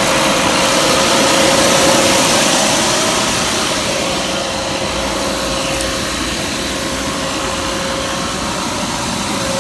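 Refrigerant recovery machine running steadily while it pulls R22 out of a leaking split system: a broad mechanical whir with a steady hum, easing off a little a couple of seconds in.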